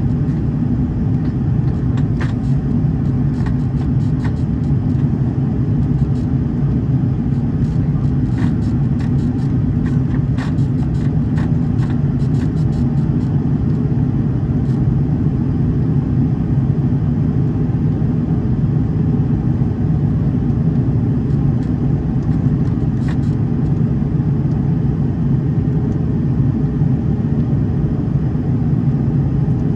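Steady roar of an Airbus A330's Rolls-Royce Trent 700 engines and airflow heard from inside the cabin during the climb after takeoff: a low rumble with a steady hum. Light scattered ticks come through in the first half.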